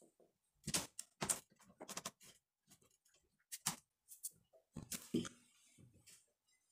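Faint, irregular knocks and clicks of someone moving about a small room and handling a plate.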